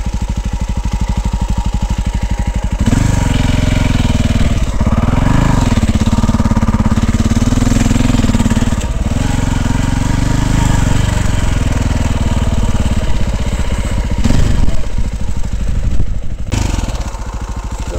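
Dirt bike engine running at low revs, then opening up after about three seconds and pulling steadily, with brief rises in pitch. Loud knocks and bumps come near the end before the engine drops back to low revs.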